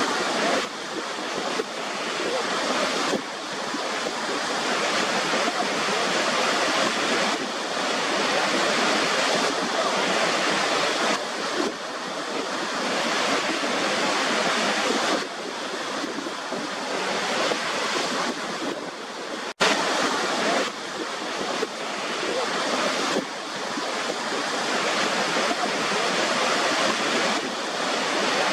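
Waterfall water rushing in a steady, dense hiss, with a brief cut-out and click about 20 seconds in where the recording is spliced.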